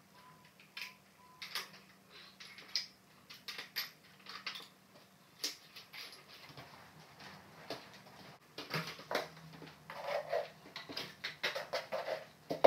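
Irregular light clicks and taps of porcelain mosaic tile pieces being handled and pressed into mortar. In the last few seconds the sound turns busier, with scraping and knocking as a trowel works mortar in a plastic bucket.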